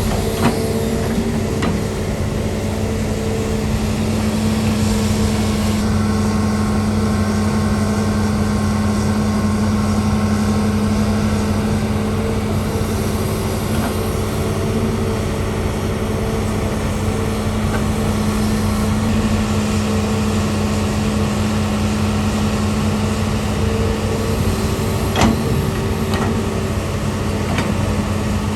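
An excavator's diesel engine running steadily at a constant pitch, with a few short clanks, the sharpest near the end.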